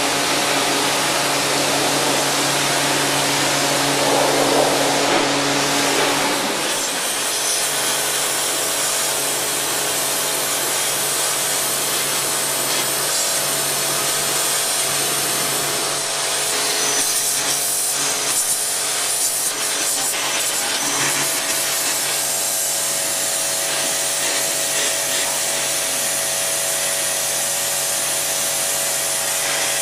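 NESCO high-pressure washer running, its jet of water hissing steadily against a vehicle over a constant motor hum. About six and a half seconds in the hum changes pitch and the spray hiss gets brighter.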